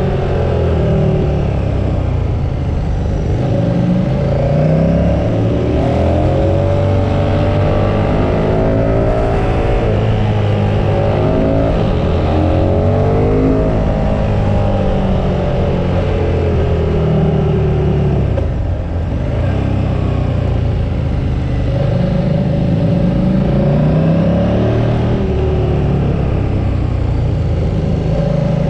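Onboard sound of a KTM 1290 Super Duke R's V-twin engine ridden hard through mountain bends. Its pitch rises under acceleration and falls off-throttle again and again, with a brief dip in level about nineteen seconds in.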